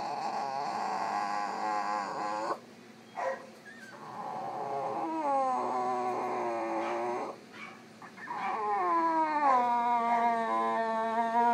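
French Bulldog howling and whining in long, drawn-out cries: three of them with short breaks, and a brief yelp between the first two. The last cry sinks and then holds a steady pitch. This is the dog's unhappy vocalising while still groggy from anaesthetic after surgery.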